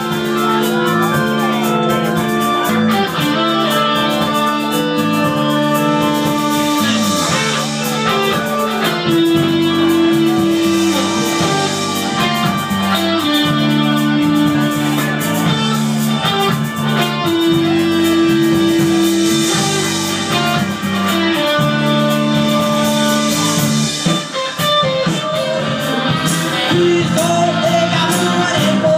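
A live band playing amplified music: electric guitar, bass and drums, with long held notes in the low range.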